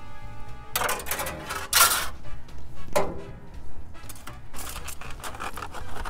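Bare wire being twisted by hand around a foil-wrapped packet on an engine's exhaust manifold: irregular clicks, scrapes and foil crinkles, a few louder about a second in, near two seconds and at three seconds.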